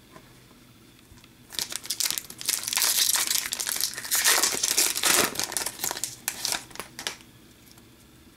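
Wrapper of a 2014-15 Upper Deck Series One hockey card pack being torn open and crinkled by hand, a dense rustle with sharp crackles starting about a second and a half in and stopping about seven seconds in.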